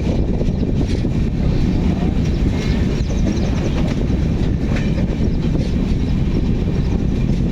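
Moving passenger train heard from on board: a steady, loud rumble of the wheels on the track.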